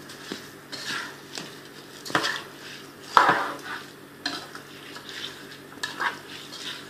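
Rice with vegetables and chicken being stirred in a pot: irregular scrapes and clinks of the spoon against the pot, about one or two a second, over a faint sizzle of frying.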